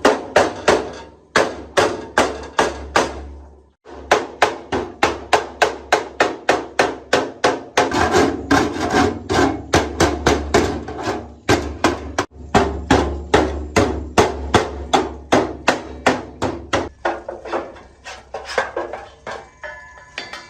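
Steady run of hammer blows, about three a second, with a few short breaks between runs.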